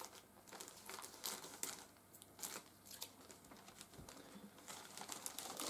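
Faint crinkling and rustling of the manual's sealed wrapping being cut open, with scattered short crackles and clicks.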